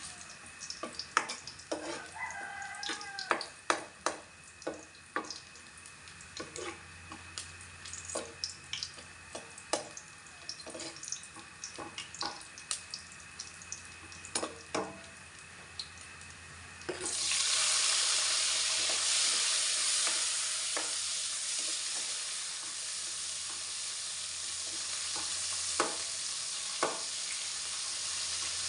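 Irregular clinks and knocks of cookware, then about two-thirds of the way through a sudden loud sizzle as food goes into hot oil in a pan. The frying carries on steadily after that, with a couple of clinks.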